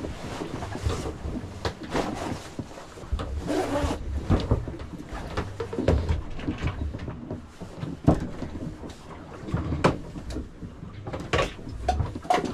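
Rustling of a waterproof sailing jacket being pulled on, mixed with irregular footsteps and knocks on the wooden floor and companionway steps of a sailboat cabin.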